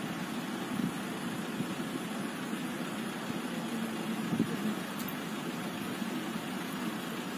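Steady low rumble of a running vehicle engine under a constant hiss, with a faint held hum in the middle.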